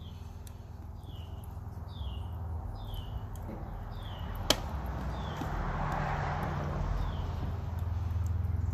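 A bird calling a string of short falling chirps, about one a second, over a low steady rumble. A sharp click comes about halfway through, and a rushing noise swells and fades just after it.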